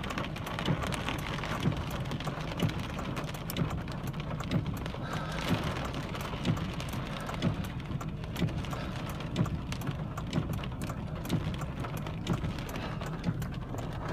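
Heavy rain in a severe thunderstorm, with a dense haze of rain and many sharp drop hits. A dull thump repeats steadily about once a second.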